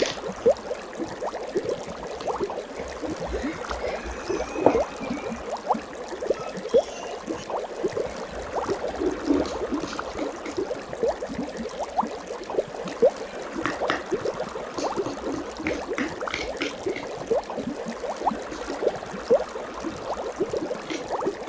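Slime being kneaded and squished by hand in a bowl: an irregular run of small wet squelches and pops.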